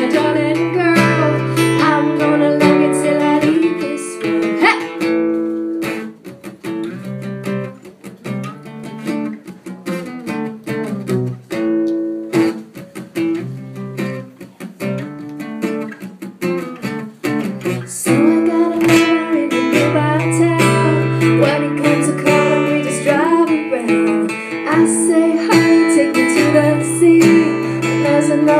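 Live acoustic duo: a strummed acoustic guitar with a woman singing. There is a quieter guitar-only passage in the middle, and the vocal comes back in about two-thirds of the way through.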